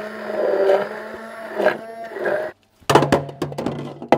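Stick blender running in a plastic beaker, puréeing a liquid herb marinade with a steady motor whirr that cuts off about two and a half seconds in. A few sharp knocks and clatter follow near the end.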